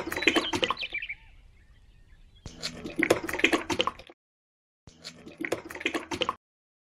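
Wet cement slurry pouring and splashing in three short bursts with abrupt cuts between them: first from a small cup into a sand mould, then from a miniature cement mixer's tipped drum into a small pail.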